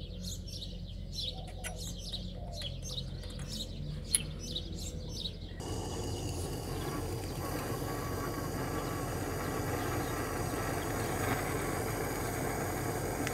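Small birds chirping over a quiet background, with a single sharp click about four seconds in. About five and a half seconds in, a steady hiss of a handheld gas torch's flame starts abruptly and runs on, heating a copper pipe fitting for soldering.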